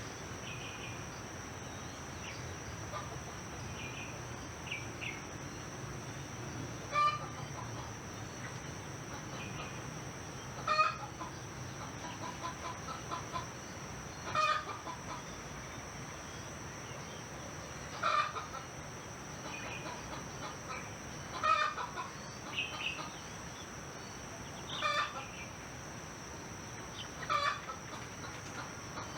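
Chicken clucking in short calls repeated every three to four seconds, over a steady high-pitched drone of crickets, with a few faint bird chirps near the start.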